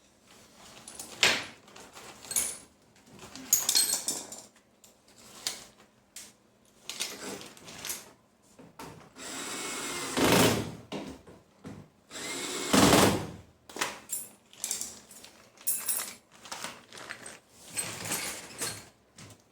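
Power drill or electric screwdriver running in two short bursts about ten and thirteen seconds in, the second with a rising whine, amid scattered clicks and clinks of metal parts and screws being handled during washing-machine reassembly.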